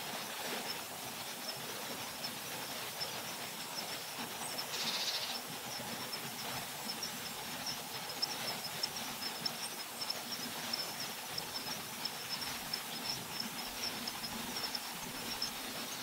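Outdoor lakeside ambience: a steady, high-pitched chirring over a soft noisy background, with one brief harsher call about five seconds in.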